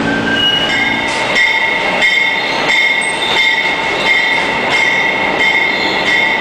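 Subway work train of flat cars rolling past, its wheels squealing in a steady high ring, with a clack every second or so as the wheels cross rail joints.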